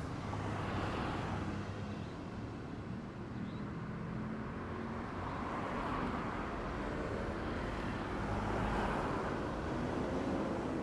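City road traffic: vehicles passing one after another, the tyre and engine noise swelling and fading. The loudest passes come about a second in, around six seconds and again near nine seconds.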